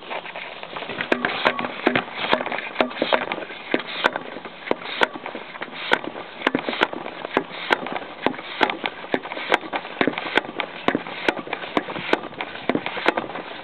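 Hand-operated oil and fluid extractor pump being stroked, sucking old automatic transmission fluid up the dipstick tube into its reservoir: a run of sharp clicks, about two or three a second, over a constant noise.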